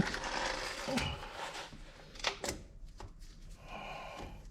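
Light clatter of hand tools and metal brake parts being handled at the caliper: a rustle, a dull knock about a second in, then a couple of sharp clicks and a short scrape.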